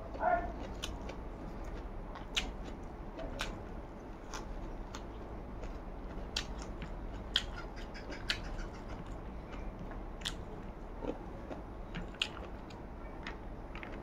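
A person chewing a mouthful of rice close to the microphone, with frequent sharp wet mouth clicks and smacks, over a steady low hum.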